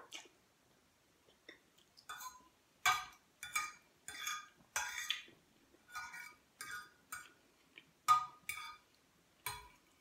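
Metal fork scraping and clinking on a plate as spaghetti is gathered up, in a run of short strokes starting about two seconds in.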